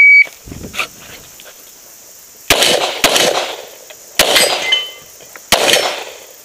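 Shot timer's start beep, a short loud high tone, then four pistol shots from a semi-automatic handgun beginning about two and a half seconds later, spaced roughly a second apart, each trailing off in an echo.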